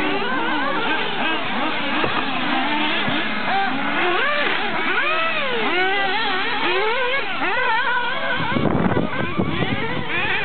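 Several 1/8-scale nitro RC buggy engines revving hard as they race, many high-pitched notes overlapping and constantly rising and falling with throttle. A brief rough rushing noise cuts in near the end.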